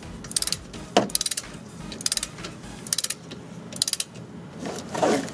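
Ratchet head of a click-type torque wrench clicking in short quick runs, about one run a second, as the wrench is swung back and forth to run a brake caliper bolt down toward its torque.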